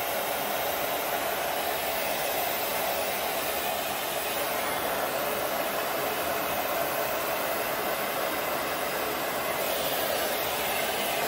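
Electric heat gun blowing steadily, a constant rush of hot air.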